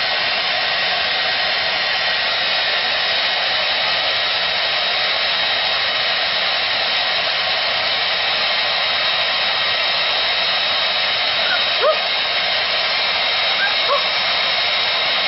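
A small electric motor and fan, like a blower, running steadily with an airy rush and a constant high whine. Two or three short, high, squeaky rising cries cut through it about three-quarters of the way in.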